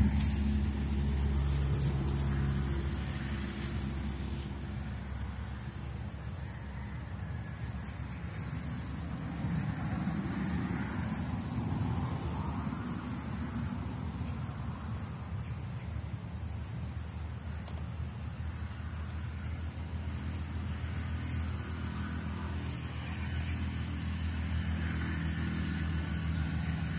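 Steady high-pitched insect trilling over the low hum of a motor engine that swells and fades.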